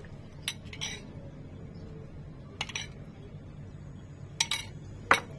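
Kitchen utensils knocking and clinking against dishes: a handful of short, separate clinks, the loudest one near the end.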